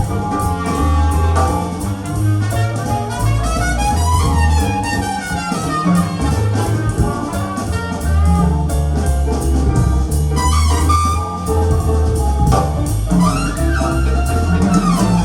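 Jazz music played back through KEF LS50 Meta speakers and subwoofers: an instrumental break from a live band with a strong stepping bass line, drums and a lead instrument whose notes slide up and down.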